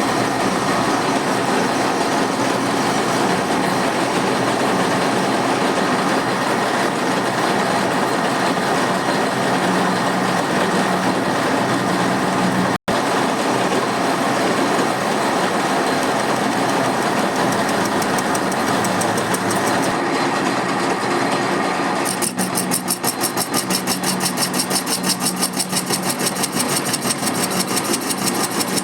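A machine tool running as it machines a metal spacer: a steady mechanical hum and hiss, with a fast, regular pulsing over the last several seconds.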